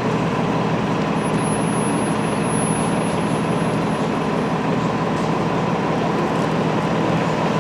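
Steady low rumble and hum of a running vehicle, unchanging throughout, with a faint high whine from about a second in to past four seconds.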